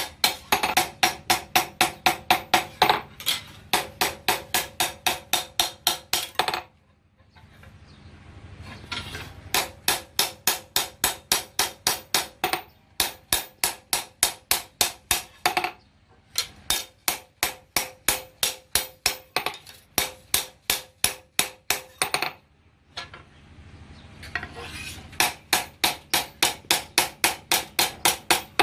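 Hand hammer blows on steel at an anvil, forging a knife blade: steady strikes about three a second, each with a metallic ring. They come in runs of several seconds with short pauses between.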